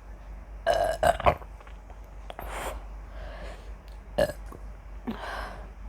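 A woman burping from carbonated cola: a loud burp about a second in, broken into a few quick pulses, then a short, sharp burp about four seconds in, with softer breathy sounds between them.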